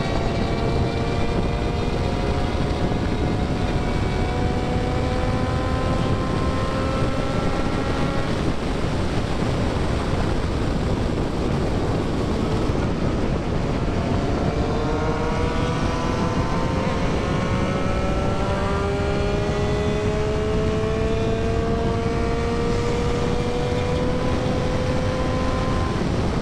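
Triumph Street Triple 675's inline-three engine pulling at highway speed under a heavy rush of wind, its pitch climbing slowly in gear. The engine note drops out under the wind for several seconds in the middle, then climbs again through the second half as the bike speeds up.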